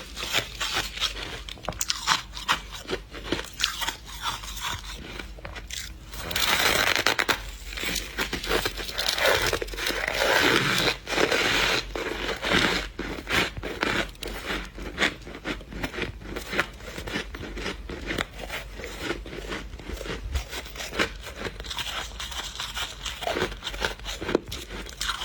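Close-up chewing of a mouthful of squeaky, powdery freezer frost: rapid crunches throughout, louder and denser for several seconds in the middle.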